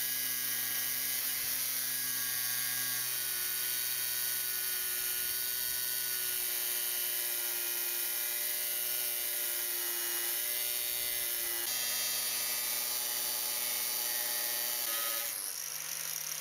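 Angle grinder in a chop-saw stand, its Kronenflex cut-off disc cutting through a steel bar under load: a steady motor tone with a harsh grinding hiss. About a second before the end, the motor's pitch jumps higher as the load comes off at the end of the cut.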